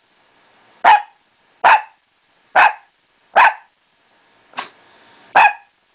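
Shih Tzu giving single barks at an even pace, about one every 0.8 s, six in all, the fifth one weaker. It is counting out the answer to a sum.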